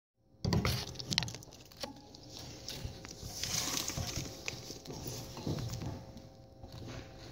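Ferret moving about a cage over plastic, with irregular claw taps, scrabbling and rustling, and a few sharper knocks, the loudest about half a second in.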